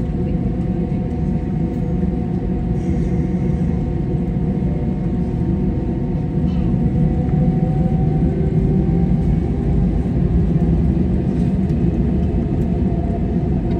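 Airbus A320 cabin noise from a window seat behind the wing: a steady rumble of the engines at low thrust with faint whining tones, growing a little louder about halfway through.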